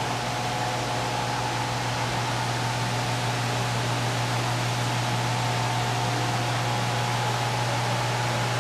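Hardinge HLV-H toolroom lathe running steadily: an even hiss over a low electric hum, with a faint higher whine that eases slightly past the middle.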